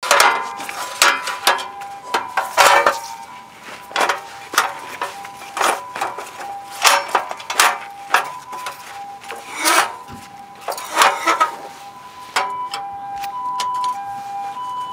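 Stainless-steel folding fire pit being unfolded and assembled by hand: sharp metal clanks, clicks and scrapes of its panels and grate, about one a second, thinning out after about twelve seconds. Soft steady high tones run underneath.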